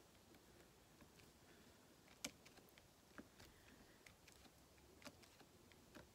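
Near silence with a few faint, sharp clicks, the clearest about two seconds in: a diamond-painting drill pen picking round resin drills out of a plastic tray and pressing them onto the canvas.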